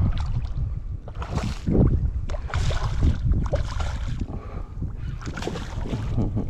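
Strong wind buffeting the microphone with a steady low rumble, while small waves splash and slap against a kayak's hull every second or so.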